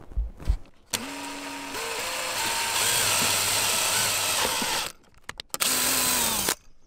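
Power drill boring a hole with a twist bit through the blank plug in a boat's dash panel: one run of about four seconds, the motor whine stepping up in pitch, then a second, shorter run near the end.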